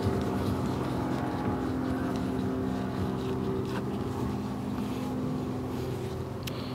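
A steady motor drone made of several held tones that stays even throughout.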